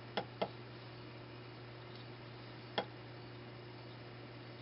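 Sharp clicks from a hand plugging in and handling a small electronics circuit board: two in quick succession near the start, then one more about two and a half seconds later, over a steady low hum.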